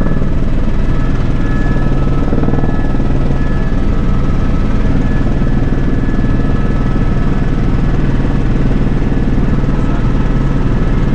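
Helicopter in steady flight heard from inside the cabin: a loud, even drone of engine and rotor with thin steady high-pitched whining tones on top.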